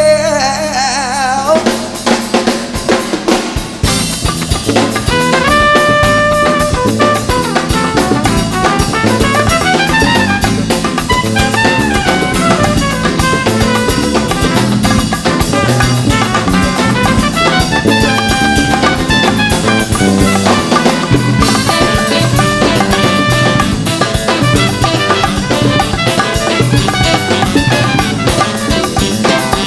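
Rock band playing an instrumental passage with no vocals: a drum kit keeps a steady beat while a lead instrument plays melodic runs of notes up and down over it.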